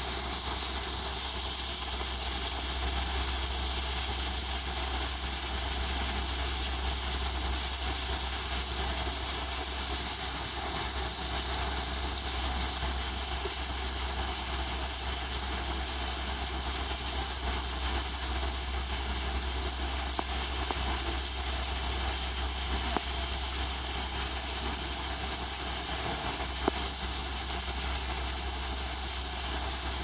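Steady outdoor background drone: an even, high-pitched hiss with a low rumble underneath, unchanging throughout, with no distinct bird calls.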